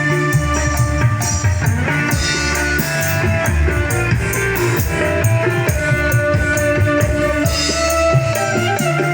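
Live dangdut band (Orkes Melayu) playing over a PA system at a sound check: a steady drum beat with bass, guitar and held melody notes.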